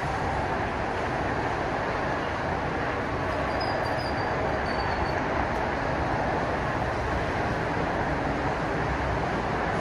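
Steady rushing city ambience from road traffic on the highways, with a faint high whistle for about a second and a half near the middle.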